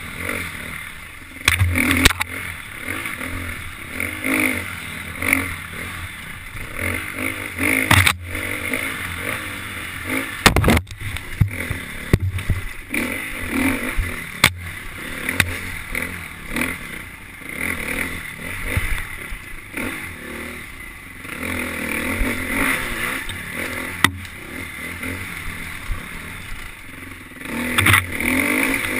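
KTM 350 XC-F four-stroke single-cylinder dirt bike engine running hard on a forest single track, the revs rising and falling with the throttle. Sharp knocks and clatter from the bike over rough ground come through at intervals.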